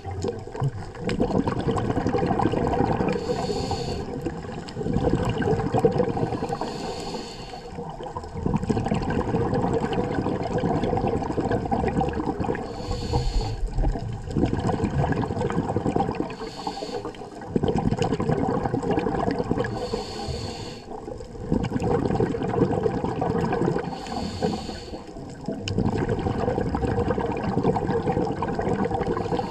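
Scuba diver breathing through a regulator underwater: a short hiss on each inhale, then a long bubbling rumble as the exhaled air escapes, repeating every three to four seconds.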